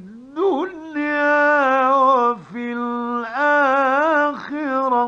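A man reciting the Quran in the melodic mujawwad style, holding long notes that bend through ornamented turns, in phrases with short breaths between. It is an old 1950s radio recording.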